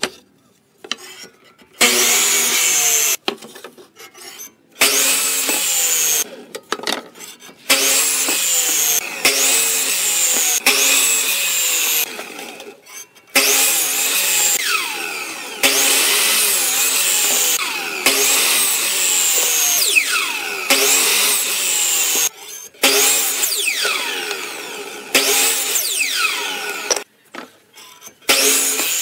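Electric miter saw making a series of crosscuts through wooden strips, about ten times over: each time the motor whines up, the blade bites through the wood, and the blade winds down with a falling pitch before a short pause.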